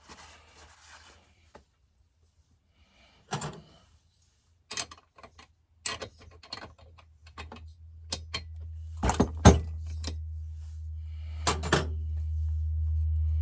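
Metal tools and chainsaw parts clinking and knocking as they are handled during a teardown, in separate sharp clicks with short gaps between. About eight seconds in, a steady low hum starts and slowly grows louder.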